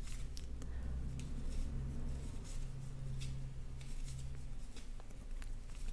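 Wooden knitting needles working knit stitches: faint scattered clicks of needle on needle and the soft rub of yarn being drawn through.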